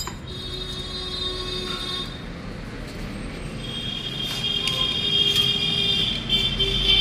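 Steady mechanical background noise with a high whine, faint in the first two seconds and louder from about four seconds in, with a few light metal clicks as a cylinder head gasket is worked off its studs.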